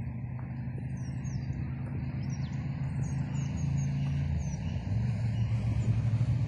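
A motor engine running with a steady low hum that shifts a little in pitch and grows louder about halfway through. Small birds chirp briefly, high over it, several times.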